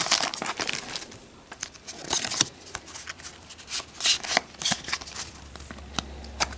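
A foil booster-pack wrapper crinkling as it comes off, then a stack of Pokémon trading cards being handled and slid one past another in short flicks and swishes.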